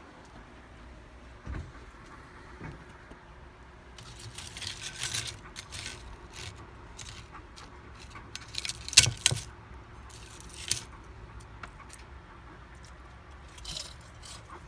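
Intermittent light clattering and scraping as crisp air-fried tortilla chips are handled on a metal air fryer rack, with the loudest clatter about nine seconds in.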